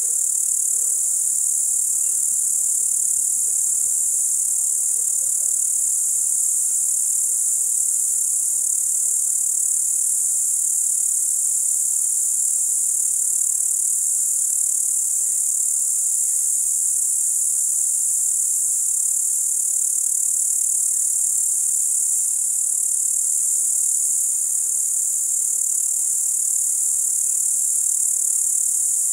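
Crickets chirring in a dense, unbroken high-pitched chorus that holds steady throughout.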